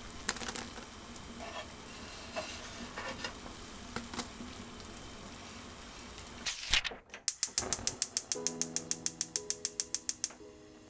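Beef and radish soup boiling hard in a pot, a steady bubbling hiss with small irregular pops. About six and a half seconds in a short whoosh, then a fast even ticking, about eight ticks a second for some three seconds, with a few sustained music notes coming in under it.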